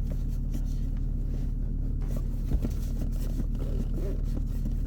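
Car engine idling steadily, a low hum heard from inside the cabin, with one faint knock about two and a half seconds in.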